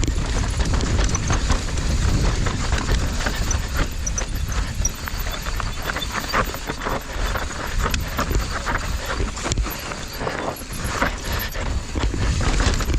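Yeti SB165 mountain bike descending a steep, loose, dry trail: tyres crunching over dirt and rocks and the bike rattling with a continuous stream of small knocks, over a low rumble of wind on the microphone.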